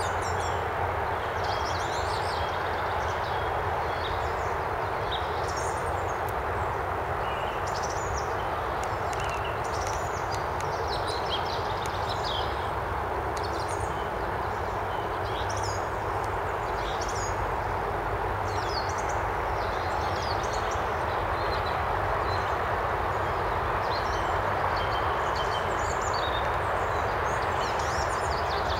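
Several small songbirds chirping and trilling in short, quick phrases throughout, over a steady background rumble of noise.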